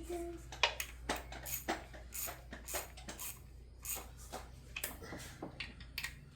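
Metal hand tools and parts clinking and knocking during work on a car, a few irregular clinks each second.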